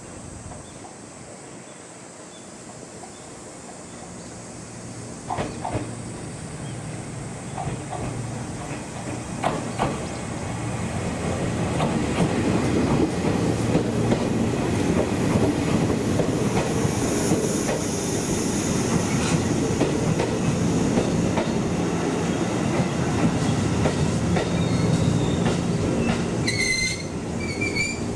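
Electric train pulling in at low speed, its wheels knocking over rail joints and points. The running noise grows louder from about ten seconds in, with high wheel squeal partway through. Short chirping tones repeat a few times near the end.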